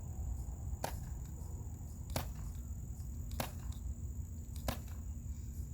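Novritsch SSX-23 gas airsoft sniper pistol with a full suppressor firing four single shots about 1.3 seconds apart, each a short, sharp pop.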